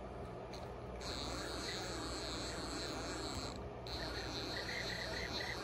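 NEMA 23 stepper motor (KL23H2100-50-4BC on a KL-5056E digital driver) turning under handwheel jog, with a steady high-pitched whine. It runs for about two and a half seconds, stops briefly, then starts again.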